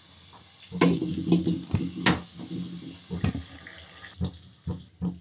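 Gujiya deep-frying in hot oil in a wok, a steady sizzle, with several sharp knocks of a metal spoon against the pan as they are turned and lifted out.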